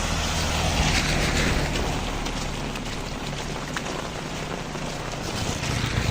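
Heavy rain falling steadily, with scattered drops ticking close by. Gusting wind buffets the microphone with a low rumble that swells about a second in.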